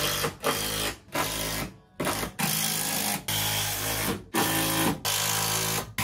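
Cordless drill driving screws through wooden floor strips into a van's ribbed sheet-metal floor, running in about seven short bursts of half a second to a second, each cut off sharply when the trigger is let go.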